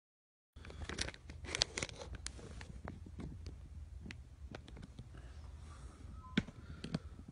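Handling noise from a phone camera being swung round and steadied: scattered clicks and rubbing, thickest in the first two seconds, over a steady low hum.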